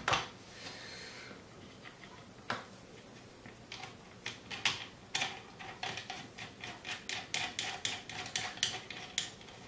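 Small steel parts of an M1 Garand's gas cylinder assembly being handled and fitted at the muzzle end of the barrel: light metallic clicks and taps. There is a lone click a couple of seconds in, then the clicks come several a second through the second half.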